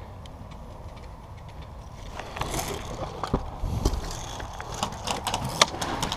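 Irregular sharp clicks and knocks with some scraping, starting about two seconds in, over a steady low rumble.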